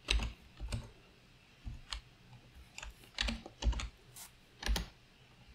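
Computer keyboard keystrokes and clicks: about ten separate taps at an irregular pace, some in quick pairs.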